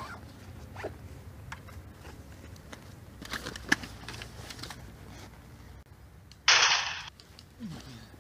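A single gunshot about six and a half seconds in: a sudden sharp crack, the loudest sound here, fading over about half a second. Softer rustling and a small click come before it.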